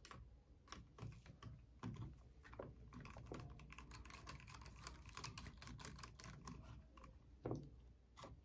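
Faint, quick clicking of a small precision screwdriver turning a screw out of the plastic front end of a Traxxas Mini E-Revo RC truck, thickest in the middle, with a few soft knocks of the truck being handled, one louder near the end.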